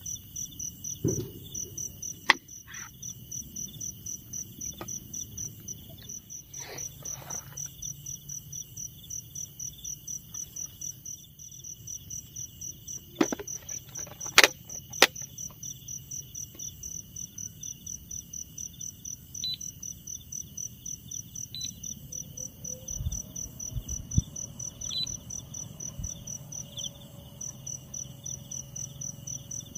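Insects chirping in a high, steady pulsing trill of about four pulses a second, over a second, steadier insect drone. A few sharp clicks or knocks come in the middle, the loudest about halfway through.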